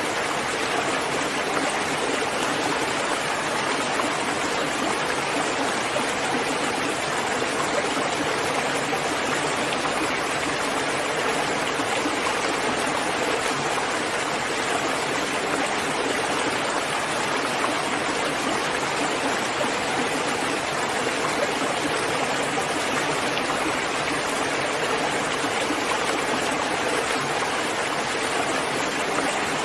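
Steady rain falling, an even rushing hiss with no single drops standing out.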